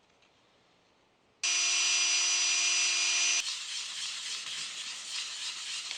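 Power sanding of a walnut sphere. A steady motor whine with the hiss of abrasive on wood starts suddenly about a second and a half in. About two seconds later it drops to a quieter, rougher rubbing hiss.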